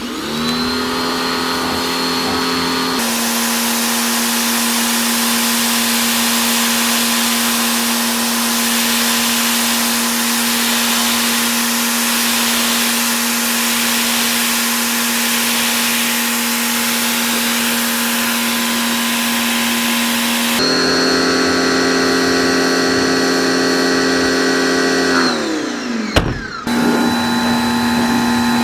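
Pressure washer running: its motor hums up to speed at the start, with the hiss of the water spray from about three seconds in until about 21 seconds. Near the end the motor winds down, stops for a moment and starts again.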